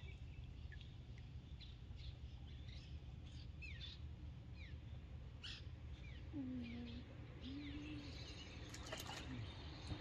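Faint birds chirping outdoors, short falling notes scattered throughout, over a low steady background hum. Two low drawn-out tones come in the second half, and a few sharp clicks come a little before the end.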